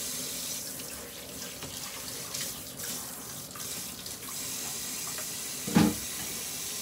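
Water running from a tap into a sink, with one short loud knock near the end.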